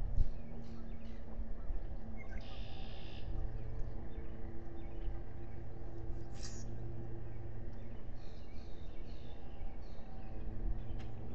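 Outdoor ambience: a steady low rumble with a faint hum, and a few short, high calls of small birds scattered through it, one a buzzy trill. A single knock just after the start.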